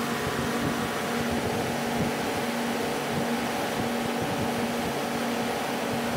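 Atlas Copco GA160 oil-injected rotary screw air compressor running, a steady machine and cooling-fan noise with a low hum that swells and fades about every second and a half.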